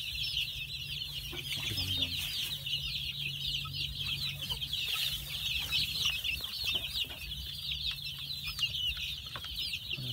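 A flock of young chicks peeping continuously: many short, high cheeps overlapping into a steady chorus.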